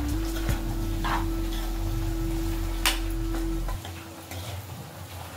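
Metal spoon scraping and stirring chopped spiny gourd in a frying pan, a few separate strokes about a second apart. A steady low hum with a held tone runs underneath and stops near the four-second mark.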